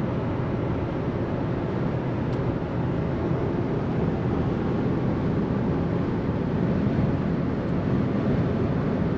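Steady road and engine noise from inside a vehicle's cabin while driving at speed on the motorway.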